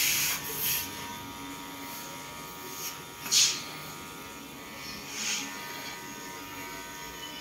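Cordless electric hair clipper running with a steady buzz as it cuts short hair at the back of the head, with a few brief hissing scrapes, the loudest about three and a half seconds in.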